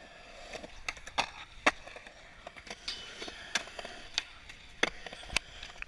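Skateboard rolling fast over concrete with a steady wheel roar, broken by a string of sharp clacks and knocks from the board.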